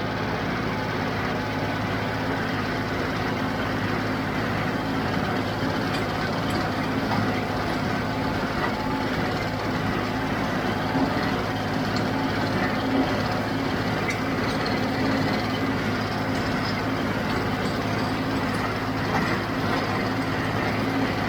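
John Deere 5055D tractor's three-cylinder diesel engine running steadily, an even engine hum with a few faint ticks.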